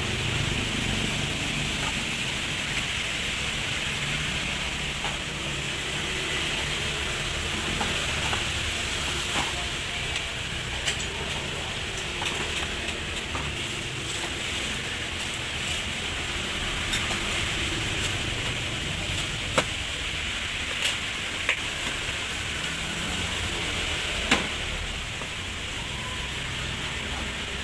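Steady hissing background noise with a low rumble, and a few sharp clicks or taps in the second half.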